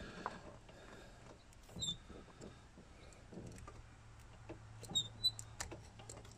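Box cutter blade cutting and scraping at the rubber mount of a driveshaft carrier bearing: faint scratching and small clicks, with short squeaks about two seconds and five seconds in.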